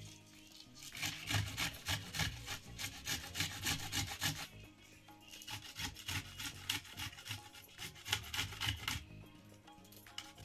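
Vegetables being cut by hand on a board: quick, rhythmic scraping strokes, about five a second, in two runs of a few seconds each with a short pause between.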